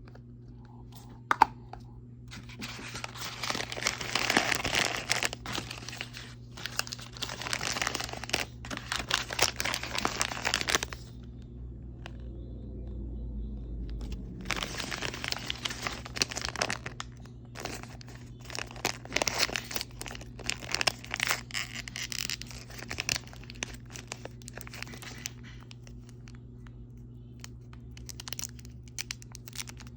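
Plastic toy packaging being peeled, torn and crinkled by hand, in two long stretches of rustling with a pause of a few seconds between them, then scattered lighter crinkles and clicks near the end.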